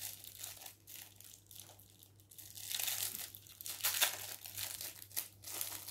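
Thin plastic wrapping crinkling in the hands as a small packet of balloon-kit tape is unwrapped. The crinkles are sparse at first and come thicker from about halfway through.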